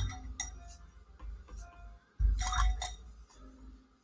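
Paintbrush rattling against a glass jar of rinse water with ringing glass clinks, in two bouts: one at the start and another a little after two seconds in.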